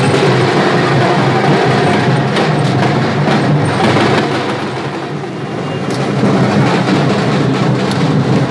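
Loud music with drumming and percussion over a dense background. It thins briefly about five seconds in.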